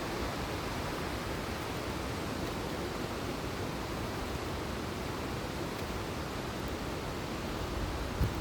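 Mountain valley stream rushing steadily, a loud, even wash of water noise. A brief low thump near the end.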